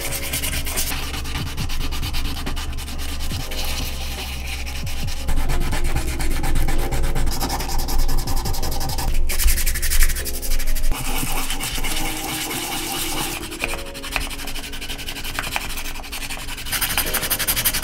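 Sandpaper being rubbed by hand back and forth along a carved holly-wood wand, in rapid, even strokes, to smooth the wood.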